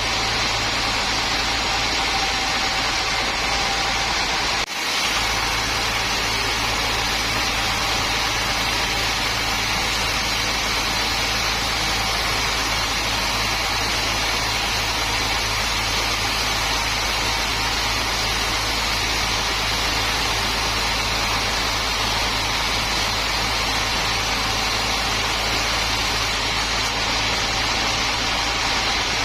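Sawmill machinery running steadily, an engine-driven drone without a pause, with a momentary break about five seconds in.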